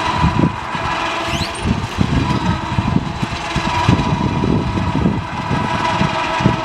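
Sawmill's engine running steadily, with a steady whine over a rough, uneven rumble.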